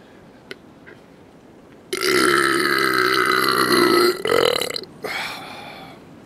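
A man's long, loud belch about two seconds in, brought up by a can of malt liquor. It lasts about two seconds and then trails off in two shorter, lower pushes.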